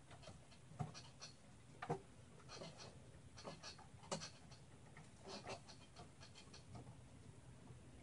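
Faint, scattered light clicks and taps, irregularly spaced, from hands handling parts and cables inside a small computer case.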